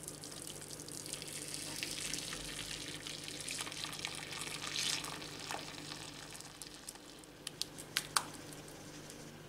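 Boiled soy mash pouring from a pot into a cheesecloth-lined strainer, a steady splashing pour of soy milk and pulp as it is strained. Near the end come a few sharp clicks as the last pulp is scraped out of the pot.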